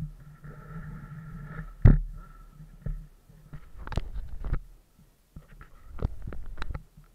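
Handling noise on the camera: a gloved hand knocking and rubbing against the camera body, with a sharp knock about two seconds in and bursts of taps and scrapes after it.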